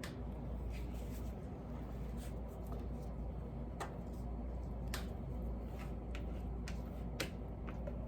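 Scattered light clicks and taps, about a dozen at irregular intervals, from soap-making molds and tools being handled, over a steady low hum.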